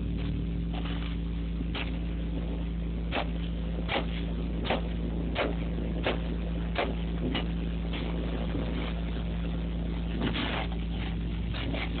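Industrial vacuum hose sucking up sand, with a steady drone from the suction. Sharp knocks come about once a second as stones and lumps strike the hose.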